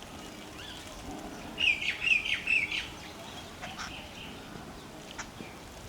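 Sparrows chirping: a quick run of about five short chirps a little under two seconds in, with a few faint ticks afterwards.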